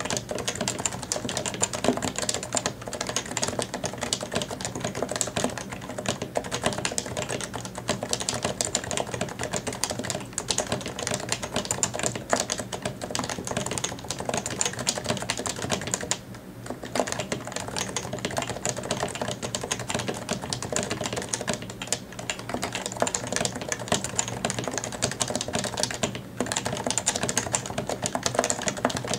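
Fast touch-typing on a Happy Hacking Keyboard Professional 2 with Topre capacitive switches: a rapid, continuous run of soft key clacks, with a brief pause about halfway through.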